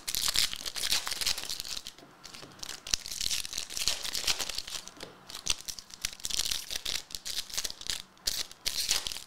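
Trading-card pack wrappers crinkling and tearing as packs of 2023 Select AFL Legacy cards are ripped open by hand. The crackling comes in spells with short breaks between them.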